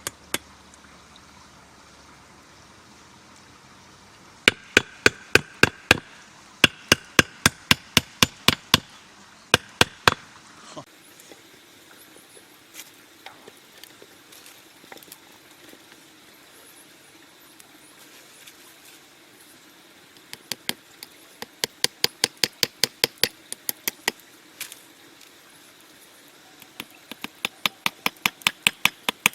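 Runs of rapid, sharp knocks, about five a second, in several bursts with pauses between them, as of a tool striking repeatedly.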